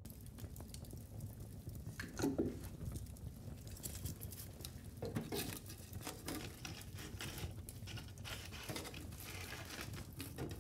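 A dog sled team approaching over snow: a steady patter of paws and runners with many small clicks and a low rumble, and a few faint calls.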